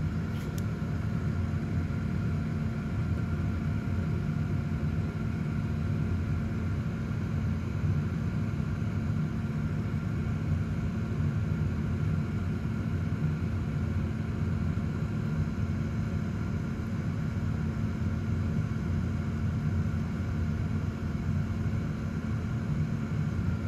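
Steady low hum and rumble of a running motor, even and unchanging throughout.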